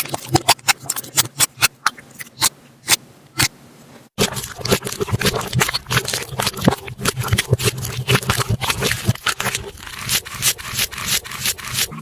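Slime being squeezed and poked by hand, making rapid sharp clicking and popping sounds. About four seconds in the sound cuts to another clip where the pops come thicker over a faint low hum.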